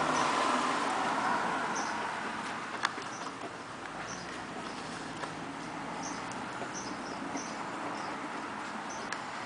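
A small Chihuahua puppy scratching and burrowing in a cushioned fabric dog bed, giving a scratchy rustling that is heaviest in the first couple of seconds. There is one sharp click a little before three seconds.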